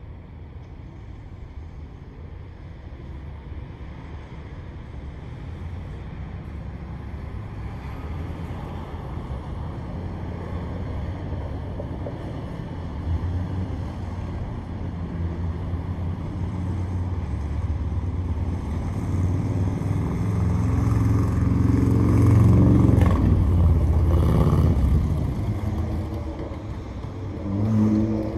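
A road vehicle's engine, a low rumble that grows steadily louder as it approaches, is loudest about three quarters of the way through, then fades as it passes. A second, shorter rise comes near the end.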